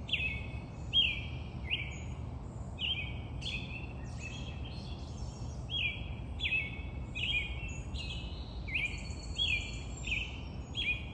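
Several birds calling over and over, short chirps that slide downward in pitch, coming about every half second and overlapping one another, over a steady low background rumble.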